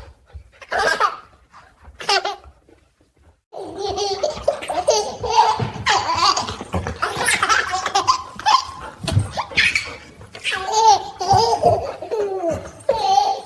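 A baby laughing: two short bursts, a brief pause about three seconds in, then almost continuous laughing to the end.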